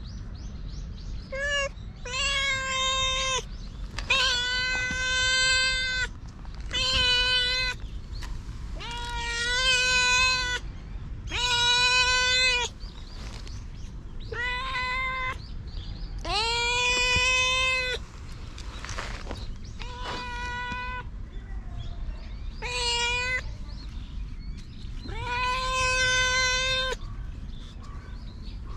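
Tortoiseshell stray cat meowing over and over, about a dozen long, drawn-out meows with short gaps between, while being petted.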